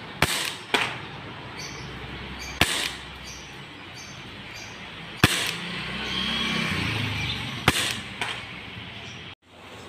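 KJW Mk1 Ruger-style green-gas airsoft pistol firing four single shots about two and a half seconds apart. Each shot is one sharp pop with no slide action, as the gun is non-blowback. Fainter knocks follow the first and last shots.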